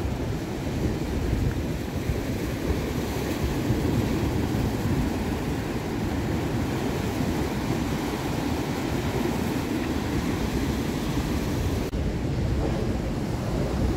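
Ocean surf breaking and washing over a rocky shore, a steady rush heavy in the low end, with wind buffeting the microphone.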